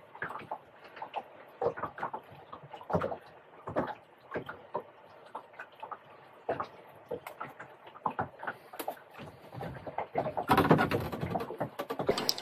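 Small, irregular clicks and knocks of a small wrasse being handled and unhooked by hand, then a louder rush of noise for about two seconds near the end.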